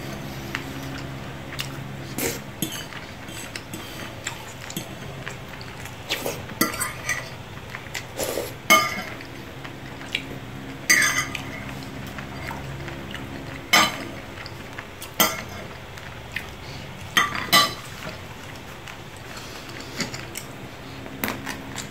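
Metal fork clinking and scraping on a plate in irregular strokes, with a few louder clinks in the middle, over a low steady hum.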